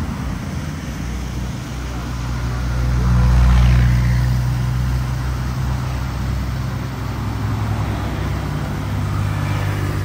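A steady motor hum over a rushing noise, swelling about three to four seconds in.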